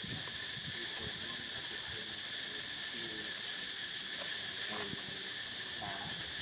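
Steady, high-pitched drone of insects, one band at a middle pitch and one higher, with a few faint brief sounds over it.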